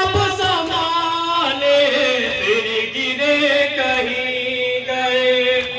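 A man chanting a noha, a Shia mourning lament, in long, drawn-out held notes that step down in pitch.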